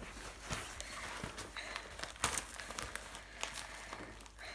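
Newspaper pages rustling and crinkling as a puppy bites and tugs at them, with a run of short, sharp crackles, the loudest about two seconds in.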